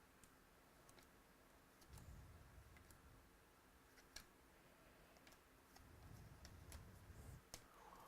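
Near silence with scattered faint clicks and a few soft low thumps: trading cards being handled and flipped through.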